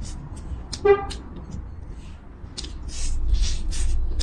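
Eating with chopsticks from a bowl: repeated light clicks and short chewing and slurping sounds. A short horn-like toot sounds about a second in, and a low vehicle rumble swells near the end.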